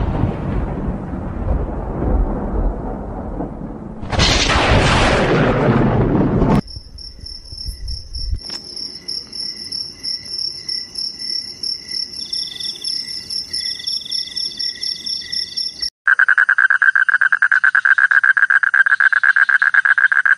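Night-ambience sound effects: a rumble of thunder that dies away, swells again about four seconds in and cuts off abruptly, then crickets chirping in steady high trills. From about sixteen seconds a loud, rapidly pulsing frog croak takes over.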